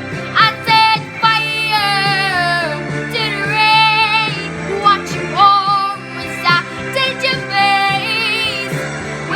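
A girl singing held, wavering notes over a pop backing track.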